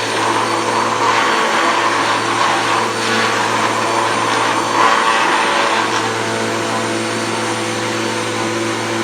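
Dirt Devil Power Max Rewind upright vacuum cleaner running steadily at full speed, its brush roll spinning. The sound is a little louder and rougher from about one to six seconds in.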